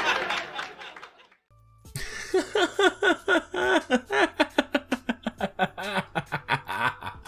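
A person laughing hard in a long run of rhythmic "ha-ha" pulses, about four a second, starting about two seconds in after a short lull.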